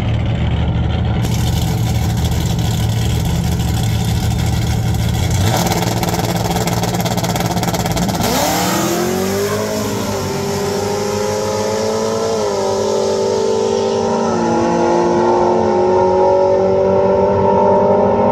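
Drag-racing pickup truck and a second car launching off the start line. A steady engine rumble gives way to a loud rush about eight seconds in. The engine notes then climb, dropping back twice at gear changes as the vehicles pull away down the track.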